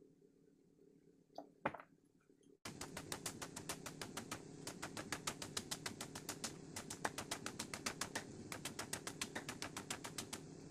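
A knife chopping quickly and evenly into a raw bamboo shoot, shredding it into thin strips, at about seven sharp strokes a second over a steady low hum. The chopping starts abruptly a little over two seconds in; before that there are only a couple of faint clicks.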